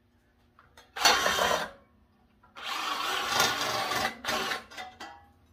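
Drill-driven Dicfeos double-head metal nibbler run in a short burst about a second in, then again for nearly two seconds, trailing off in a few brief stutters. Its punch head is stuck, jammed in the 18-gauge copper sheet.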